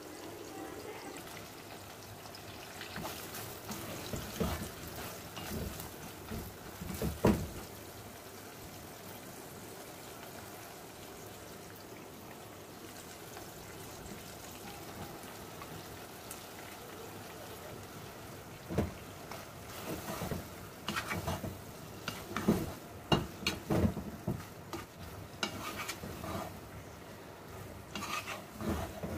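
Marinated chunks sizzling in oil with cumin seeds in a pot, a steady hiss. A wooden spatula stirs and knocks against the pot in clusters of clatters, about three to eight seconds in and again from about eighteen seconds on.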